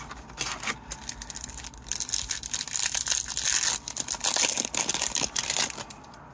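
Wrapper of a 2022-23 Upper Deck Series 1 hockey card pack being torn open and crinkled: a dense crackling that starts about half a second in, grows louder in the second half and stops shortly before the end.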